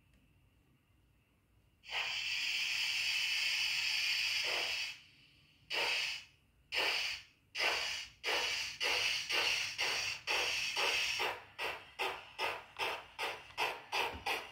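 Lenz O-scale model of steam locomotive 98 861 pulling away, its sound decoder playing a steady steam hiss for about three seconds. Then come exhaust chuffs, first about a second apart, quickening to two or three a second as the engine gathers speed.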